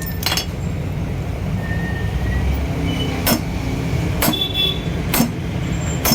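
Metal tools knocking and clinking on engine parts, about five sharp strikes spread a second or so apart, some with a brief metallic ring, over a steady low hum.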